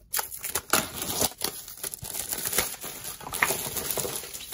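Thin plastic wrapping crinkling and crackling in a continuous run of sharp little clicks as a wooden magnetic board wrapped in it is handled.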